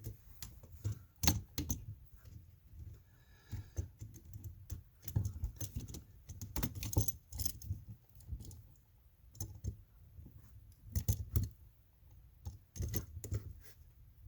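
Irregular clicks, taps and scrapes of small hand tools on a wall outlet's metal terminals and wires while a wire connection is being tightened.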